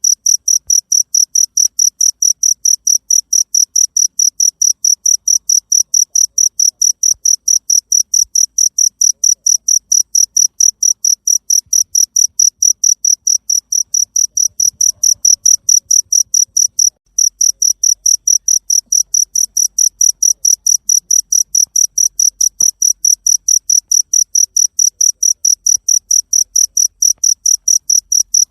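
Cricket chirping: a steady, rapid train of shrill, even chirps that breaks off briefly about two-thirds of the way through and then resumes.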